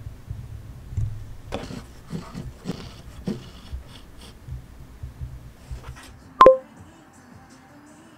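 Handling noises from a small Canon PowerShot V10 vlog camera being touched and moved on a table: a run of light knocks and rustles over a low hum. About six and a half seconds in there is one sharp click with a brief ring.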